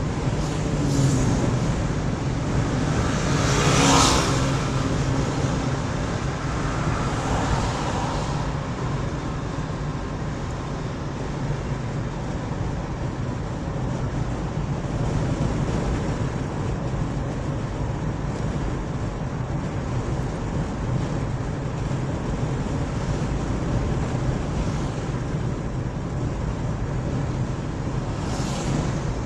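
Steady road and engine noise of a moving car, heard from inside on a smartphone: a constant low rumble of tyres and engine with an even hiss above it. About four seconds in, another vehicle passing close by swells up briefly as the loudest moment, and a smaller swell follows near the end.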